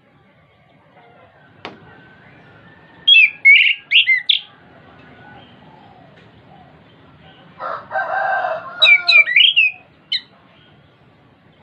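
Chestnut-capped thrush (anis kembang) singing two bursts of quick, sharply rising and falling whistled notes, the first about three seconds in and the second near the end. Between them, about eight seconds in, comes a lower, rougher sound lasting about a second.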